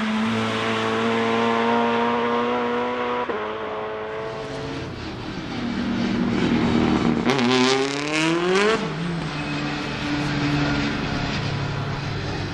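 Nissan Primera GT BTCC super touring car's 2.0-litre SR20DE four-cylinder engine running hard at high revs. The note holds steady, then drops about three seconds in. A fast rising rev climb from about seven to nine seconds in ends with a gear change, and the engine then runs on at a lower pitch as the car passes.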